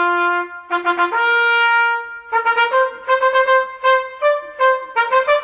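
Solo trumpet playing a melody: two or three held notes, then a run of short, quick notes.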